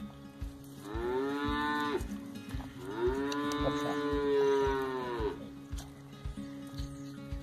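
A cow mooing twice, two long calls that rise and fall in pitch, the second longer than the first. A steady low beat of soft thumps runs underneath.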